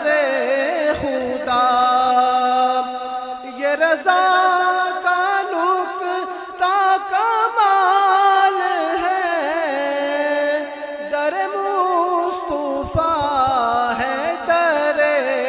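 A man singing a naat through a microphone in long, drawn-out melismatic phrases, with wavering, ornamented held notes and no clear words.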